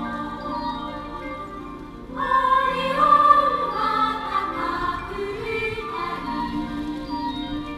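Music playing over the car's audio system in the cabin: sustained, choir-like chords that swell louder about two seconds in.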